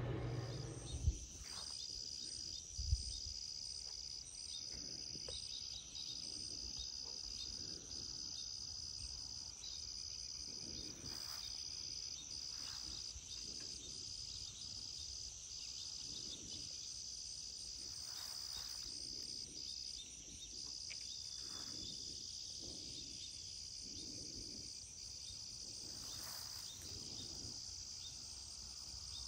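Insects trilling outdoors: a steady high-pitched buzz with a second high trill that stops and restarts every second or so. Two short knocks sound about one and three seconds in.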